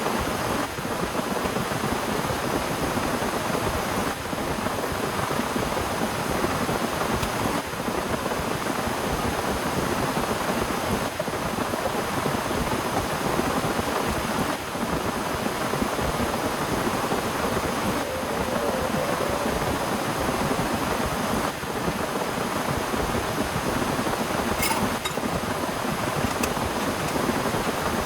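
Heavy rain falling steadily, an even hiss of drops without a break.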